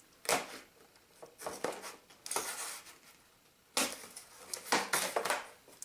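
Plastic toy packaging being handled: irregular crinkles, rustles and light clacks as a radio-control transmitter is freed from its tie-downs, with a sharper clack a little under four seconds in.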